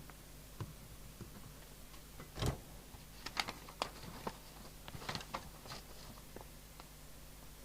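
Faint scattered clicks and light knocks of equipment being handled on a workbench, with one duller thump about two and a half seconds in, over a steady low hum.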